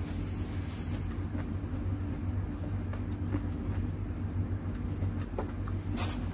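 A steady low hum, with a few faint clicks of chewing and eating and one sharp click about six seconds in.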